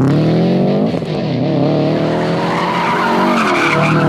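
Car engine revving hard, its pitch rising and falling again and again as it accelerates, with tires squealing over the second half.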